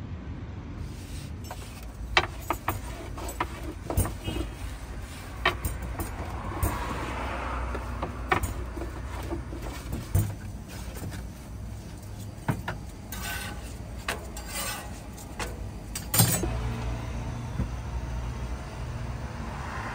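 Irregular clicks, knocks and clatter of food-prep handling, with utensils and containers being moved, over a steady low rumble. The sharpest knock comes about 16 seconds in.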